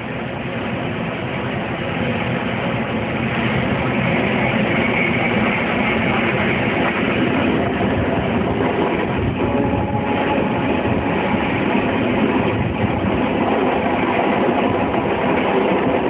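Train running close by, a loud steady rumble of wheels and engine that grows louder over the first few seconds and then holds.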